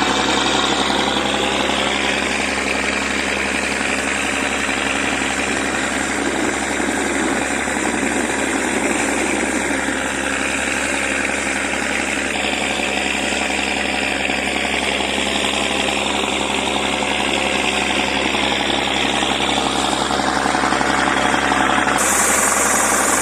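The boat's engine running steadily: a constant low hum under a dense mechanical noise. A high hiss joins in near the end.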